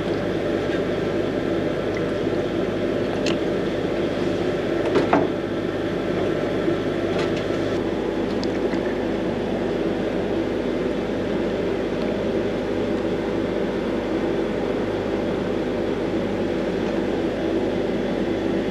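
A steady machine drone with a constant hum runs throughout, with a few light clicks and knocks. Thick grey paint is poured through a paper paint strainer.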